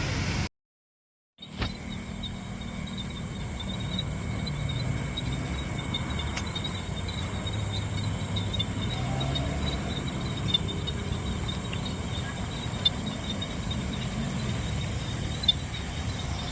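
Park ambience: insects chirring in a steady, high, slightly flickering tone over a low hum of city traffic. It cuts to silence for about a second just after the start, then resumes.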